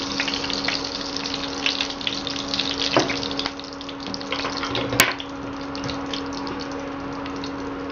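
Hot oil sizzling and crackling in a kadhai during a tempering of mustard seeds, cumin, curry leaves and freshly added turmeric. A steady hum from the induction cooktop runs underneath, with a sharp click about five seconds in.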